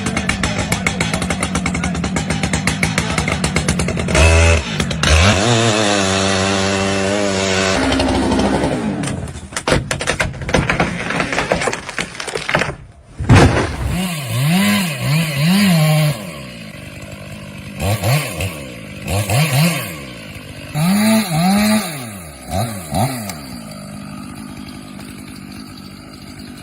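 Chainsaw running and cutting, its engine note rising and falling again and again in the second half as the throttle is opened and released. A loud low thump comes about 4 s in, and a sharp, loudest strike a little past the middle.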